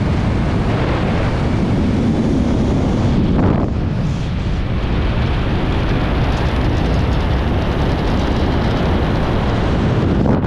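Loud, steady wind noise from fast airflow buffeting the microphone during a speedflying swoop, dipping briefly about four seconds in.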